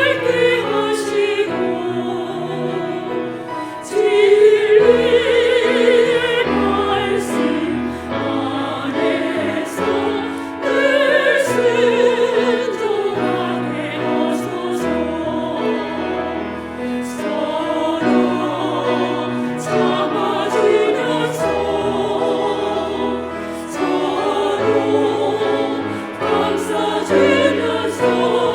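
Women's vocal ensemble singing a hymn in harmony with vibrato, over instrumental accompaniment.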